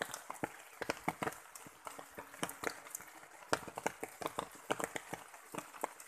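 Rain pattering: irregular sharp taps of heavy drops, several a second and uneven in strength, over a faint hiss of water.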